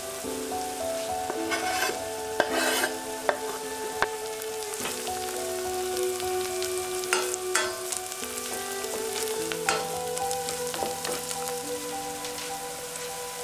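Chopped onion sizzling as it fries in oil in a stainless steel saucepan, with a wooden spoon stirring and scraping against the pan, giving a few sharp clicks among the steady hiss.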